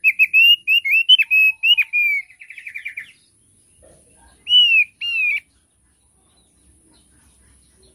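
Thick-billed heleia (opior paruh tebal) singing: a run of loud, arched whistled notes about two a second that ends in a fast rattling trill about three seconds in. After a short pause, two more whistles come near the middle.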